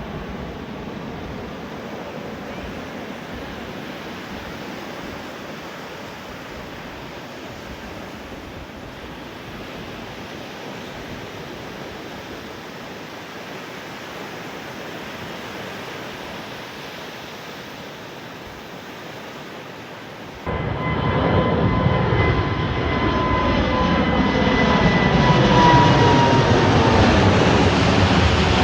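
Jet aircraft engine noise: a steady distant rumble for about twenty seconds, then an abrupt jump to a much louder, closer jet with a high whine that slowly falls in pitch as it passes low overhead.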